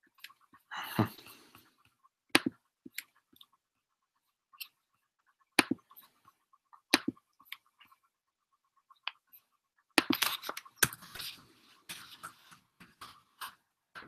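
Scattered sharp clicks and short rustles: handling noise close to the microphone. The rustling comes once about a second in and again in a denser run of clicks and rustles near the end.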